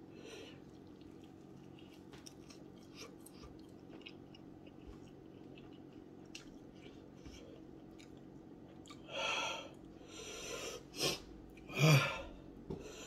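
A man chewing a very hot chicken wing, quiet chewing with small clicks, then two loud breaths out about nine and twelve seconds in as he reacts to the heat of the sauce.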